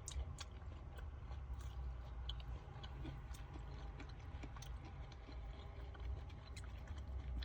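A person chewing a mouthful of soft fruit, with small wet mouth clicks scattered through.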